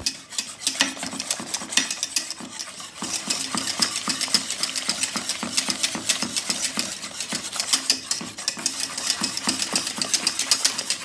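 Wire whisk beating a béchamel sauce in a stainless steel pot on the heat: quick, regular clinks and scrapes of the wires against the metal, with a faint low hum beneath. The strokes grow denser about three seconds in.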